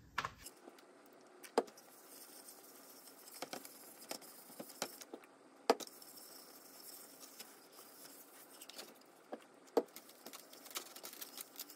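Faint rustling of a cloth rag wiping oil over a wooden bowl, broken by a few light knocks and clicks as the bowl is tilted and moved on the bench, the sharpest a little before halfway.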